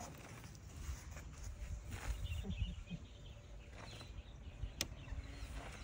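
Outdoor ambience: an uneven low rumble with faint scattered rustles, and one sharp click nearly five seconds in.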